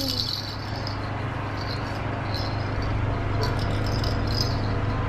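A few faint, sparse clicks from a baby's plastic ball rattle over a steady low hum.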